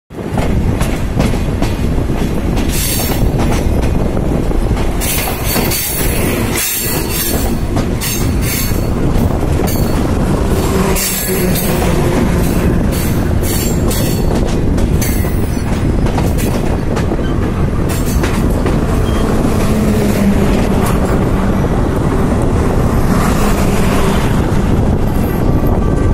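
Passenger train running at speed, heard from an open coach window: a loud, steady rumble and rattle of wheels on the track, with several short bursts of higher-pitched clatter and squeal in the first half.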